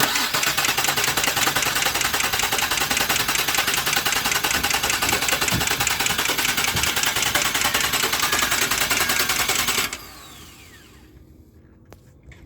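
A 2000 Nissan Maxima's starter motor cranking the engine in a fast, even rhythm for about ten seconds without it catching, then cutting off suddenly: the car cranks but does not start.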